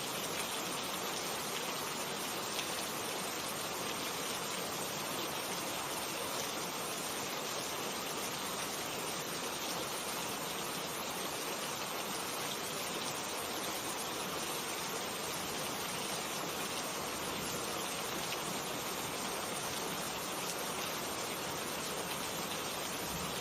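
Steady rain falling, an even hiss of many small drops hitting a surface.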